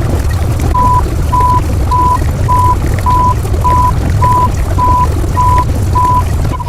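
A vehicle's reversing alarm beeping steadily in one high tone, a little under twice a second, over a loud low engine rumble. The beeping starts just under a second in.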